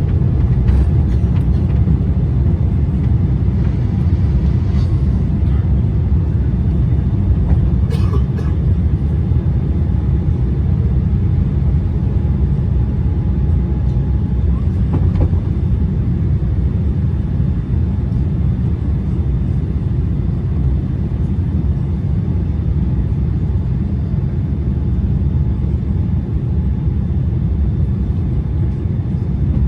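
Aeroplane taking off: a steady, deep rumble of engines and rushing air that holds evenly throughout, with a few faint clicks.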